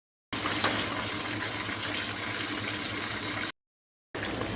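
Whole tilapia frying in hot oil: a steady sizzle with a few faint pops. It cuts to dead silence briefly near the start and again about three and a half seconds in.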